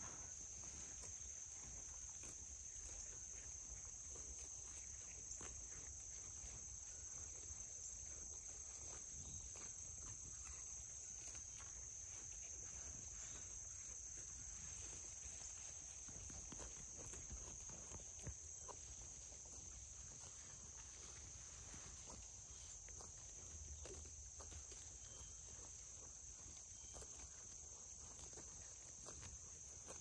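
Sheep grazing close by, tearing and chewing grass in faint, irregular clicks, over a steady high-pitched insect chorus.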